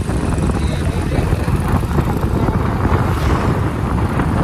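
Steady wind rush on the microphone over a motorcycle engine running, heard while riding along a road.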